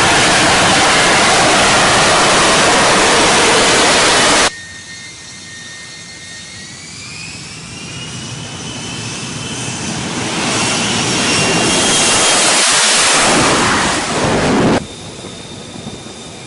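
Jet aircraft engines: a loud steady roar that cuts off suddenly about four seconds in, then a high whine that rises in pitch as the roar builds up loud again, cut off abruptly near the end.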